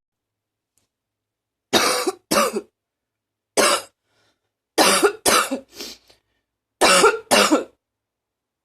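A woman coughing in short, harsh barking coughs: eight coughs in quick groups of two, one, three and two, starting nearly two seconds in.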